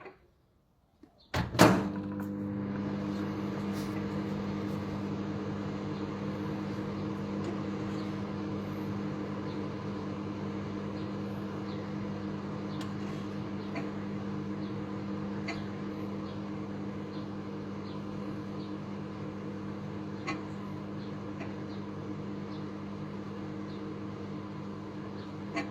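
Microwave oven starting with a clunk about a second and a half in, then running with a steady hum, with a few faint ticks.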